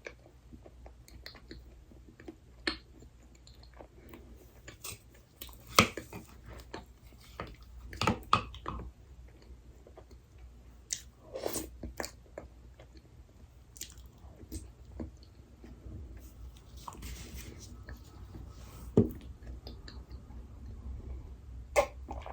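Close-miked chewing and biting of dessert, with scattered sharp clicks and knocks, the loudest about six, eight and nineteen seconds in.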